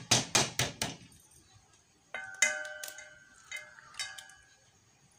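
An egg knocked against a stainless steel mixing bowl to crack it. A quick run of sharp knocks comes first, then a few harder taps about two seconds in, each leaving the bowl ringing with a clear metallic tone that fades.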